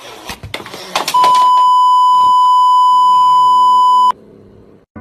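A censor bleep sound effect: a loud, steady tone near 1 kHz held for about three seconds, starting about a second in and cutting off sharply, laid over the cat as if bleeping out its cursing. Before it comes about a second of noise.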